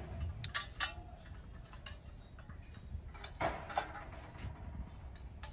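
Brass kitchen utensils handled and set down: a series of light metallic clinks and knocks, several leaving a short ring.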